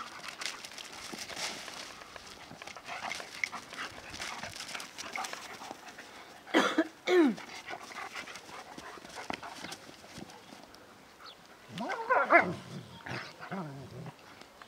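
Two German Shepherds play-fighting, with paws scuffling on grass and gravel. Two loud dog calls that fall in pitch come about seven seconds in, and a burst of short barks and yips comes about twelve seconds in.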